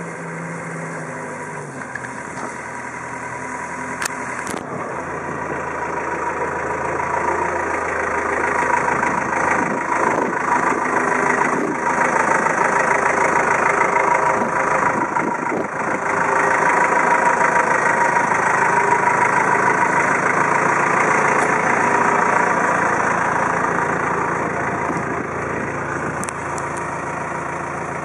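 Diesel engine of a Manitou rough-terrain forklift running as the machine moves close by, with a steady whine over it; it grows louder through the middle and eases off near the end.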